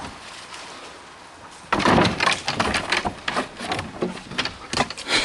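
A dog scrambling over a fence: a burst of scraping, rustling and sharp knocks that starts about two seconds in and keeps going.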